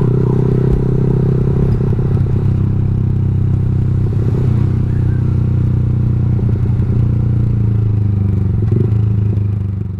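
Motorcycle engine running steadily, a few light clatters over it, fading out near the end.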